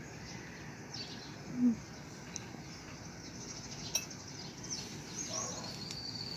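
A cat gives one short, slightly rising mew about one and a half seconds in, with faint bird chirps in the background.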